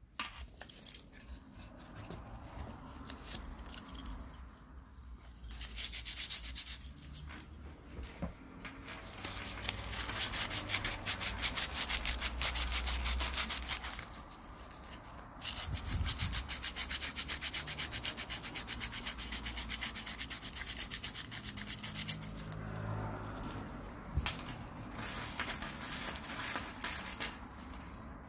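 Hand sanding with 320-grit aluminium-oxide sandpaper on a metal watch case and bracelet: rapid back-and-forth scratchy strokes that come in long runs with short pauses, roughening the metal before spray paint.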